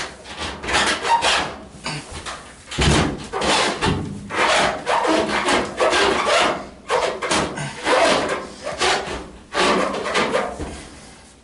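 A GE top-load washing machine being shoved across the floor by hand: a series of short, rough scrapes as its base drags, one push after another, dying away near the end.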